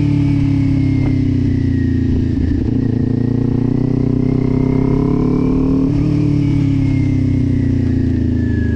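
Kawasaki Ninja 400 parallel-twin engine heard through a Leo Vince slip-on exhaust while riding at low speed. The revs rise and fall gently under light throttle, with a brief break about two and a half seconds in and a step in pitch about six seconds in.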